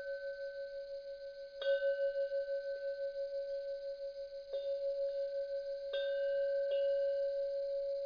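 Deep bell chime struck four times at uneven intervals, each strike re-sounding the same sustained ringing tone, which pulses with a slow wobble as it dies away.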